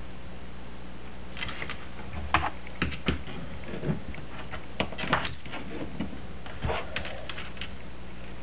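Irregular small clicks and taps of soldering work on a PL-259 coax connector, the iron and solder tapping against the connector body, starting about a second and a half in and stopping near the end. A steady low electrical hum runs underneath.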